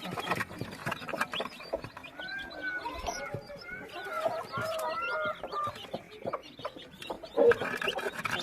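A hen clucking among a brood of chicks peeping, with many short ticks mixed in. Her arching calls stand out in the middle, and the chicks' peeping is densest at the start and near the end.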